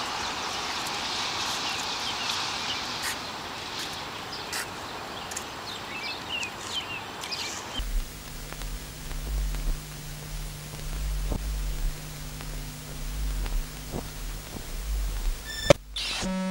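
Outdoor ambience: a steady hiss with faint bird chirps, which cuts off abruptly about halfway through. It gives way to a gusty low rumble with a steady low hum.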